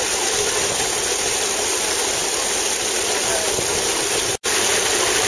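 Belt-driven grain threshing machine running, powered by a steam traction engine: a steady, even mechanical noise that cuts out for an instant about four seconds in.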